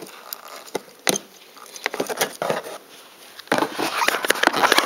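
Fingers working the windshield washer fluid hose free from the plastic cowl: scattered small plastic clicks and scratching, growing into a busy run of clicks and scraping about three and a half seconds in.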